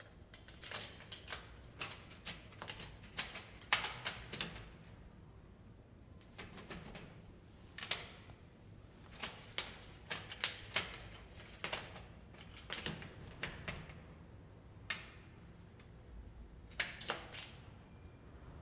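A key rattling and clicking in an apartment door lock, in repeated bursts of sharp metallic clicks with short pauses between them. The key won't open the door because the inner lock has been bolted from inside.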